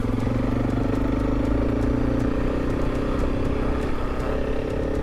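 Honda CRF300 single-cylinder motorcycle engine running steadily while the bike is ridden along a dirt track.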